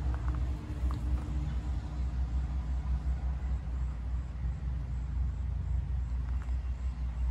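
Low, steady engine rumble running throughout.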